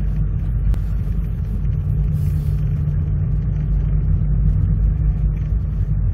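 Steady low rumble of a car's engine and tyres heard from inside the cabin, the car creeping along an icy, snow-covered road. One sharp click sounds just under a second in.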